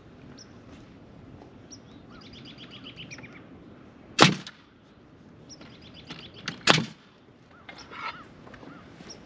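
Pneumatic framing nailer firing twice, about two and a half seconds apart, driving nails into the wooden studs of a wall frame. Birds chirp in between.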